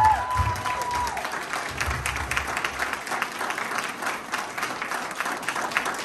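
Audience applauding, with many hands clapping steadily. A steady high tone sounds over the clapping for about the first second, then stops.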